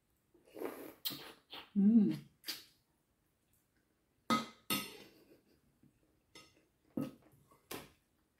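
Eating sounds: a person biting and chewing a meatball, with a short hummed voice sound about two seconds in, and a fork and spoon clinking against a ceramic bowl several times.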